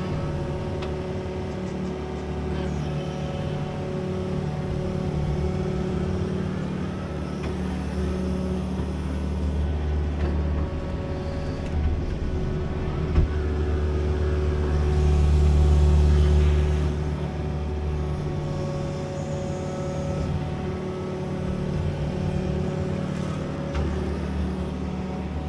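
Excavator's diesel engine running steadily, swelling louder for about two seconds a little past halfway. A single sharp knock comes just before the swell.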